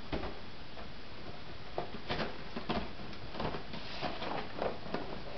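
Scattered light clicks and taps at irregular intervals, a dozen or so.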